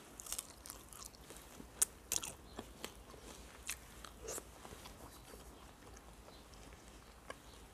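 Close-up eating sounds of fried chicken being bitten and chewed: soft scattered crunches, wet mouth clicks and finger sucking, with a few louder crunches about 2 and 4 seconds in.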